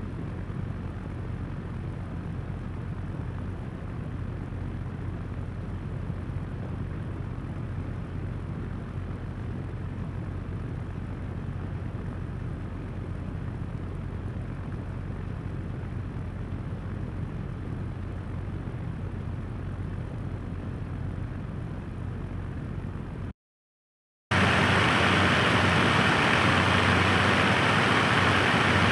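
Floor fan running steadily at a lower speed, a steady airy whoosh over a low motor hum. After about a second of silence near the end it runs at a higher speed, louder and with a brighter, stronger rush of air.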